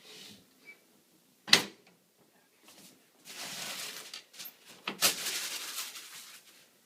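Handling noises: a sharp clack about a second and a half in, then two stretches of rustling, the second starting with a knock.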